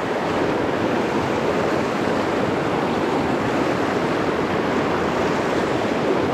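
Steady rushing of a fast, high river current running through rapids.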